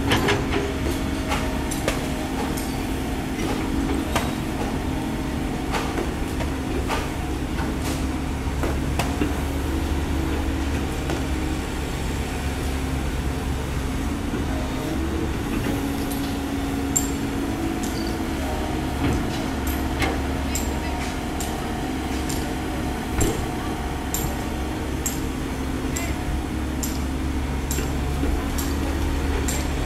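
Komatsu PC130 hydraulic excavator's four-cylinder diesel engine running steadily under load while it digs soil and loads a dump truck, its note shifting slightly with the hydraulic work, with scattered short clicks.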